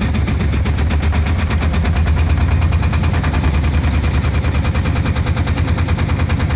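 A small boat engine running steadily just after a reluctant start, a fast, even chugging of rapid exhaust pulses over a low hum.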